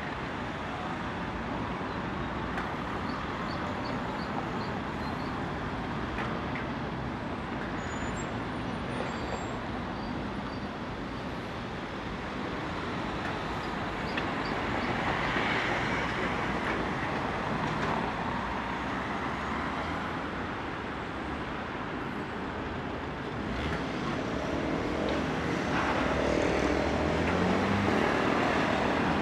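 Steady city road traffic noise, swelling as vehicles pass. Near the end, a vehicle's motor rises in pitch as it pulls away.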